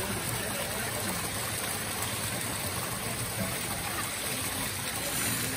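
Water pouring steadily from the stone spouts of a temple purification pool and splashing into the pool, with faint voices.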